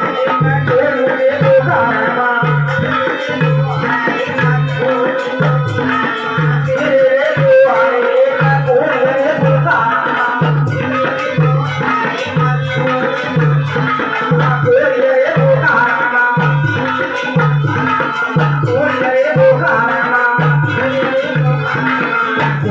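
Devotional jagran bhajan music with a steady hand-drum beat, a little over one stroke a second, under a sustained melody.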